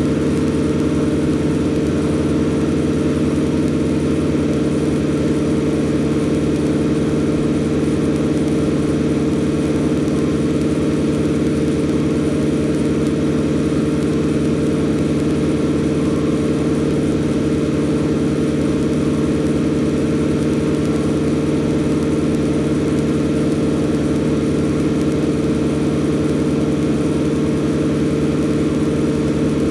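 Diesel engine of farm machinery idling steadily: a constant drone that holds one speed throughout.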